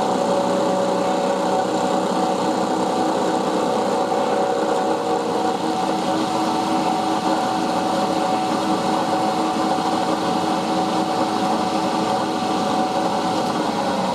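Milling machine running under a steady cut in an aluminium part: an even motor and spindle whine with a continuous cutting noise that does not change.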